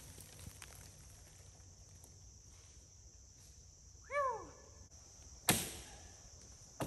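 Quiet woodland with a faint steady hiss of insects. About four seconds in comes one short call that rises and falls in pitch, and near the end two sharp cracks like dry twigs snapping underfoot.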